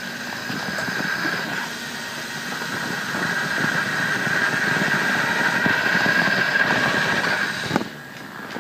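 Toy 4x4 RC truck's small electric motor and gears whining steadily as it drives, with a rattle underneath; the sound drops away near the end.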